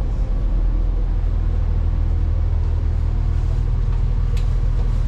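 Steady low drone of a stationary diesel train idling, heard from inside the passenger carriage.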